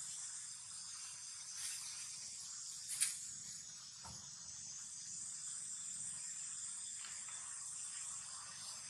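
Steady, high-pitched chorus of insects. A single short sharp click sounds about three seconds in.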